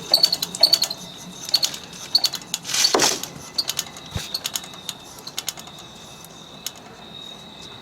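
Unplugged window air conditioner's rotary compressor still turning over on its own, making irregular clicks and rattles that thin out and fade, with one louder knock about three seconds in. The owner takes it for leftover refrigerant pressure spinning the compressor after shutdown.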